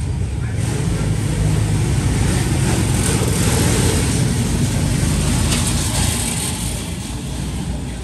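Low rumble of a passing motor vehicle, swelling for a few seconds in the middle and then fading.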